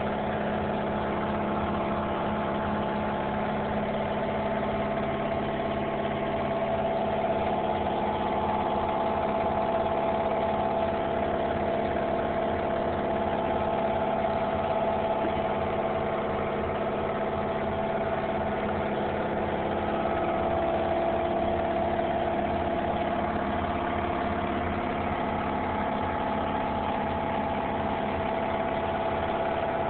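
A steady mechanical hum with several held tones, running evenly without a break.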